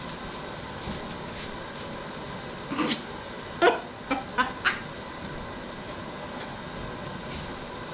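Dishwasher running with a steady hum and wash noise. Around three to five seconds in, a woman laughs in a few short bursts.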